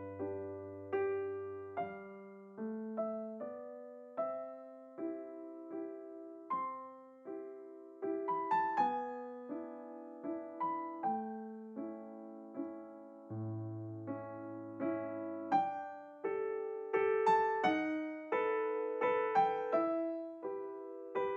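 Background music: a slow electric piano piece, notes struck one after another and left to ring, with low bass notes at the start and again in the middle.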